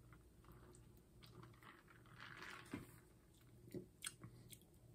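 Near silence: faint sipping and swallowing of a fizzy soda from a plastic cup, with a few faint mouth clicks in the second half.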